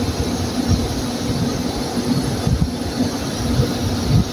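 York air conditioner running and cooling again after its starting capacitor was replaced: a steady hum and rush of air, with irregular low rumbles.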